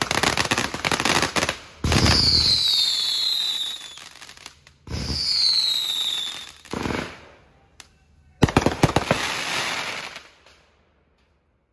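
Aerial fireworks going off: a dense run of bangs and crackle, then two bursts each followed by a falling whistle, a single bang, and a quick string of sharp pops near the end.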